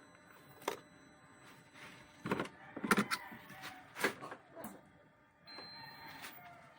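Several sharp clicks and knocks at uneven intervals, then a faint steady whine lasting under a second near the end.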